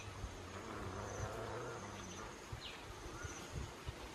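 A flying insect buzzing close by with a steady low hum, which fades out about two and a half seconds in.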